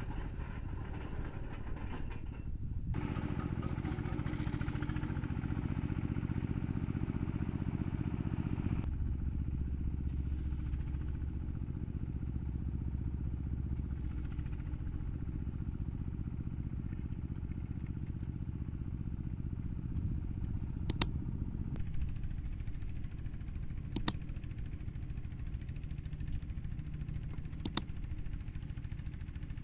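The winch engine of a manual concrete-pile driving rig runs steadily, picking up about three seconds in and settling to a lower, deeper note a few seconds later. Near the end come three sharp, loud knocks, about three seconds apart.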